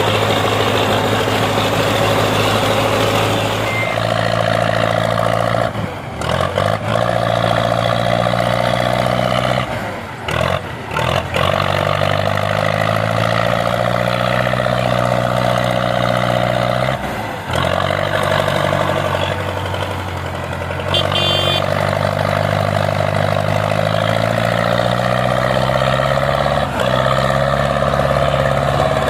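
Diesel tractor engine running under varying load. Its pitch climbs slowly, then drops back, about three or four times.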